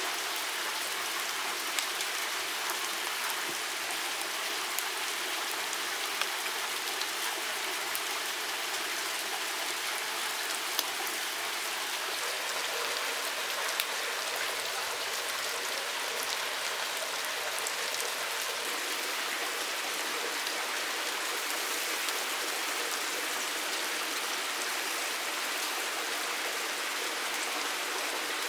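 Steady hiss of water with scattered small drip-like ticks throughout.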